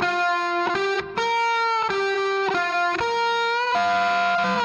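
Background music: a melody of held, slightly bending notes, a new note about every half second, with one longer held note near the end.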